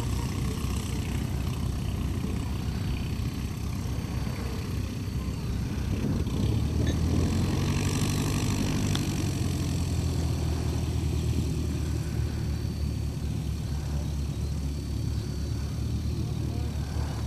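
Piston engines of several Tatra T-131 Jungmann biplanes running at idle on the ground, propellers turning, a steady pulsing drone. It grows a little louder about seven seconds in and holds there.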